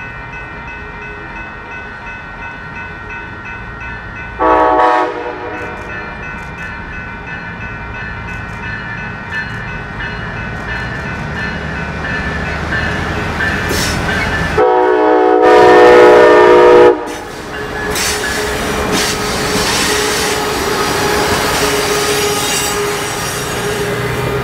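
Horn of a Siemens ALC-42 Charger diesel-electric locomotive: a short blast about four seconds in, then a longer, louder blast of about two seconds near the middle. After that the locomotives and double-deck passenger cars roll past close by, with the wheels rumbling and clacking on the rails.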